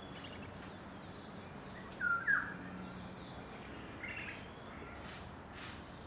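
Male banded yellownape calling: two short, loud falling notes about two seconds in, then a single fainter, higher note about two seconds later.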